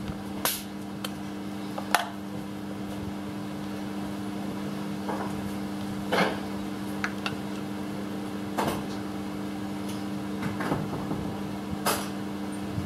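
Scattered sharp metal clicks and knocks, about half a dozen spread apart, as a compression gauge's hose and adapter are handled and fitted into a spark plug hole on a bare engine, over a steady low hum.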